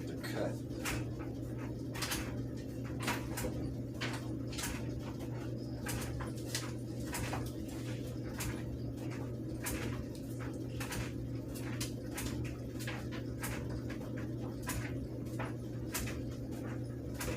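Irregular light clicks and taps, about two or three a second, of small objects being handled, over a steady low hum.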